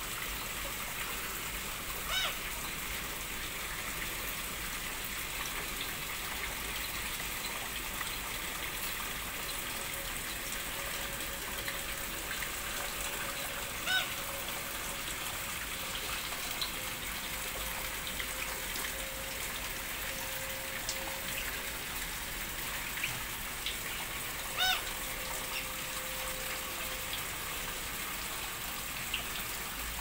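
Water from a small artificial rock waterfall pouring steadily into a pond. Over it come three short pitched bird calls, roughly ten seconds apart.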